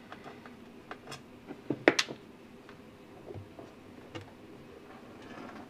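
Scattered light clicks and taps of a screw being taken out and a battery charger's case being handled and pulled open, with one sharper knock about two seconds in.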